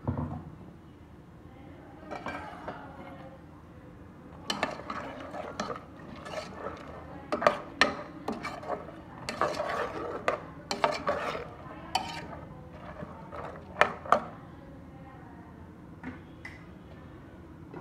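A steel ladle stirring coconut paste into a chickpea gravy in a metal pot, scraping and sloshing, with repeated sharp clinks and knocks against the pot's sides through the middle of the stirring.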